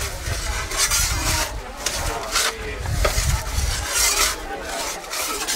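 Metal pizza peel scraping on the stone floor of a wood-fired oven in a few short strokes as the pizzas are moved.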